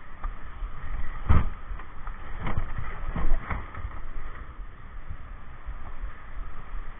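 Rushing whitewater with several sudden dull thumps, the loudest about a second and a half in and more between two and a half and three and a half seconds in.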